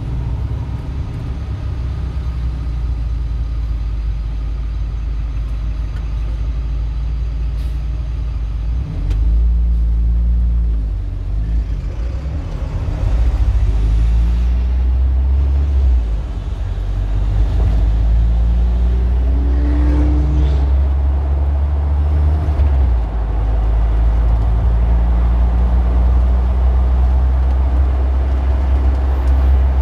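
Motor vehicle engine and city traffic sound: a steady low rumble that swells and eases, growing louder after about nine seconds, with a brief wavering tone about twenty seconds in.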